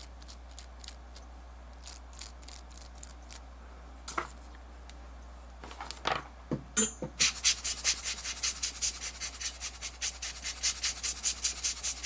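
Small faint clicks of handling, then from about seven seconds in rapid back-and-forth rubbing, several quick strokes a second, like something being scrubbed against a small hard surface.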